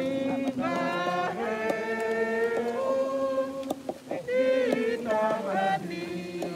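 A group of people singing a hymn together, slowly, holding long notes.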